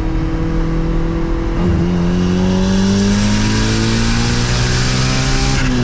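Turbocharged Honda F20B four-cylinder engine accelerating hard at full throttle: a gear change about a second and a half in, then the engine note climbing steadily with a growing hiss, and another shift near the end.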